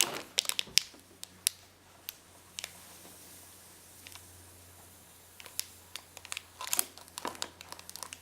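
Plastic packaging crinkling and clicking as the small glitter pouch and plastic container are handled, in bunches of sharp ticks at the start and again in the second half, with a quieter stretch in between.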